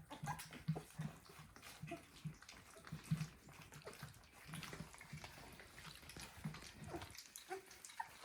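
Three-week-old North American Mastiff puppies eating gruel: faint, repeated wet smacking and slurping clicks with short low grunts, as they are still learning to lap rather than suck.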